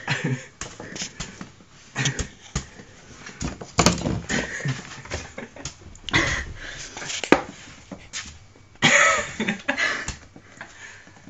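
Broom bristles sweeping and knocking on a hard floor as a ferret chases and pounces at the broom: a string of irregular brushes and sharp knocks, with a louder rustling burst near the end.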